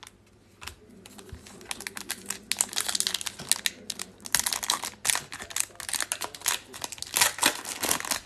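Plastic wrapper of an Upper Deck hockey card pack being torn open and crinkled, a dense crackle that builds about a second and a half in and keeps going.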